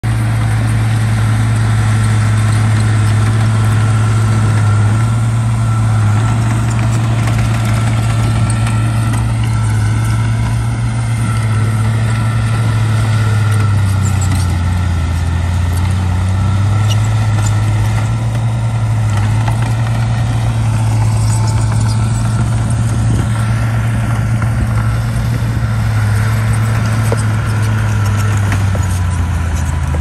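Crawler bulldozer's diesel engine running under load as it pushes rocky soil: a loud, steady low drone whose pitch dips briefly about halfway through.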